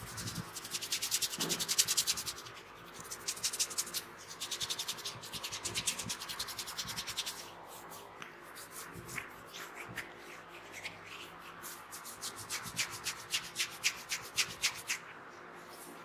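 Fingertips rubbing rapidly over a man's ear and the hair around it, a quick scratchy back-and-forth close to the microphone. It comes in several bouts and eases off for a few seconds in the middle before picking up again.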